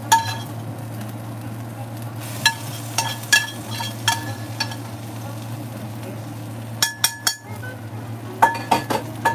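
Huevos rancheros sizzling on a hot cast-iron griddle over a steady low hum. Scattered ringing metal clinks of a spoon against a pan come a few at a time, with a cluster about seven seconds in and more near the end.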